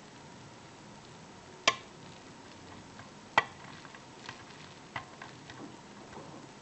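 Lock picking in an Evva five-pin euro cylinder with security pins: a hook pick and tension bar working in the keyway make faint scratchy ticks, with two sharp metallic clicks about a second and a half apart and a softer click near the end.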